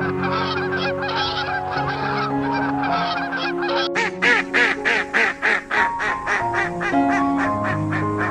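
Geese honking in a rapid, overlapping series over background music; about four seconds in the calls turn into sharper, separate honks.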